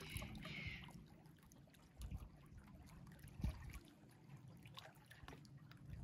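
Faint sea water lapping and trickling among concrete tetrapods, with a brief hiss near the start.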